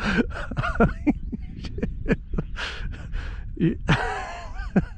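A man's wordless exclamations and laugh-like noises, sliding up and down in pitch, over a steady low rumble.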